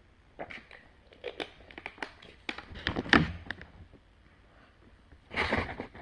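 Plastic candy packaging crinkling and rustling: a quick run of sharp crackles, then a longer rustle near the end.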